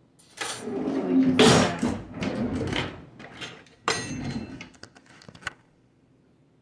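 Rustling and clattering of things being handled, with a sharp knock about four seconds in; it stops about five and a half seconds in.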